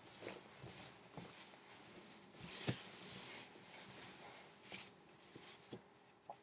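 Faint rustling of hoodie fabric and light handling knocks, with one longer rustle about two and a half seconds in.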